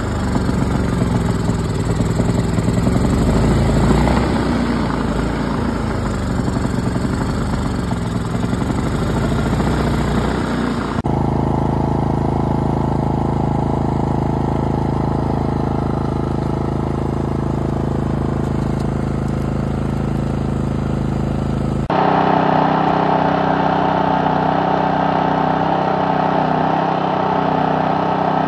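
Gas-powered MaXpeedingrods inverter generator engines running steadily in three separate takes that cut abruptly, about 11 and 22 seconds in. In the first take the engine's pitch rises and falls slowly and gently; the later takes hold one steady speed.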